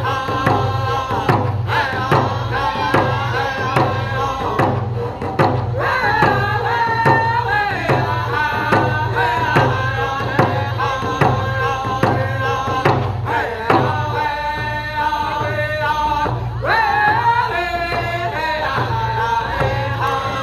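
A group of men singing a powwow hand drum song together, beating hand-held hide frame drums with sticks in a steady even beat. The voices hold high notes and slide between them, with sharp upward swoops now and then.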